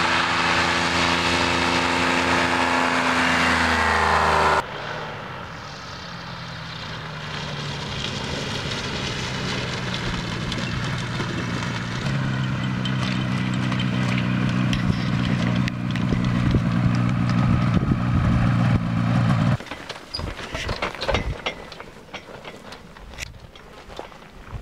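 Ultralight trike's engine and propeller running, the pitch sagging slightly before breaking off about four seconds in. The engine then comes back, running steadily and getting louder until it stops suddenly a few seconds before the end. What follows is quieter, with a few scattered clicks.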